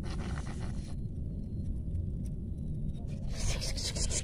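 A hooked fish splashing at the water's surface as it is reeled in, with a brief louder splash and rustle about three and a half seconds in as the fish comes out of the water. A steady low rumble runs underneath.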